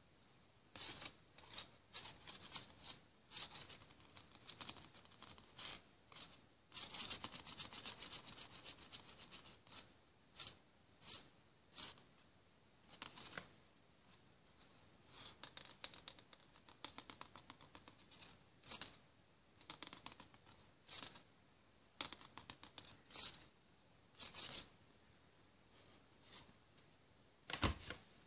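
Irregular short scratchy, rustling noises, some coming in quick runs, with one sharp click near the end.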